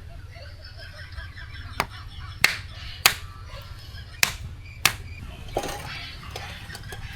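Five sharp, short knocks spaced about half a second to a second apart, over a low steady hum.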